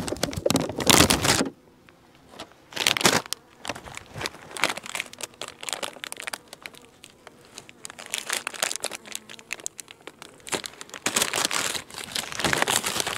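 Paper backing crinkling and crackling as it is peeled off a pollen patty, in irregular bursts, loudest at the start and again near the end.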